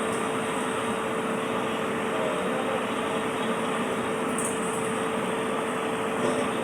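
A machine running steadily: an even mechanical noise with one constant hum.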